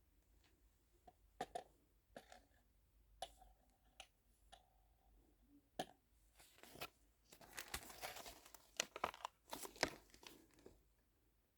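Plastic packaging crinkling and tearing in the hands, with scattered small clicks and taps, busiest about seven to ten seconds in.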